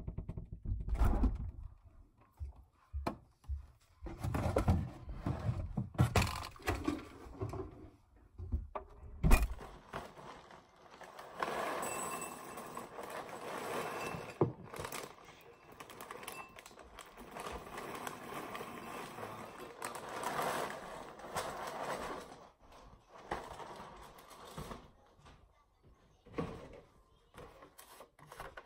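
Several sudden low thumps and knocks, then dry Cheerios cereal pouring from the box into a bowl: a steady pattering rustle lasting about ten seconds. Near the end come a few small clicks as the cap of a plastic milk jug is twisted off.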